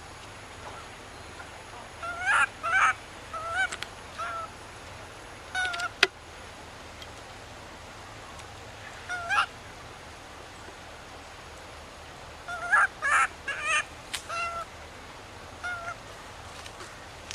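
Baby long-tailed macaque crying: short, high, pitched calls in clusters of two to four, with quiet gaps of several seconds between them. A single sharp click about six seconds in.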